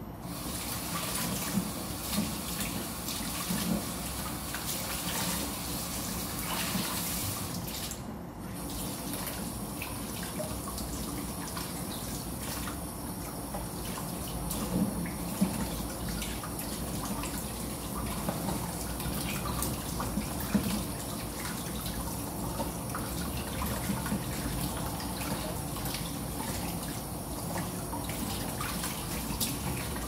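Kitchen tap running into a basin in the sink while eggs are scrubbed by hand with a sponge under the stream, with small splashes and knocks. The water breaks off briefly about eight seconds in.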